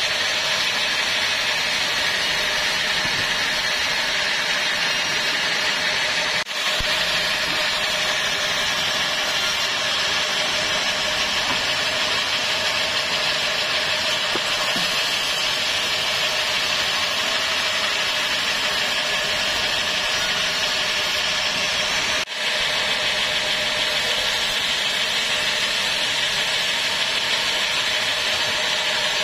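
Band sawmill running steadily, its band blade sawing through timber over the steady noise of the engine that drives it. The sound breaks off very briefly twice.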